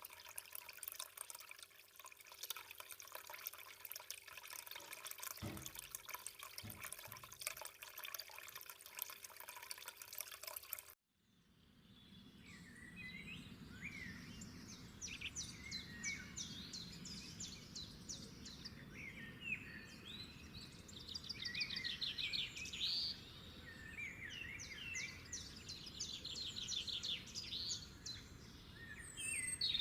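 Water trickling and dripping steadily, then after a sudden cut about eleven seconds in, birds singing with repeated fast trills and chirps over a faint low hum.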